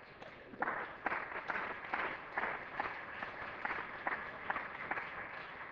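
Applause from members of parliament, many hands clapping, dying away near the end.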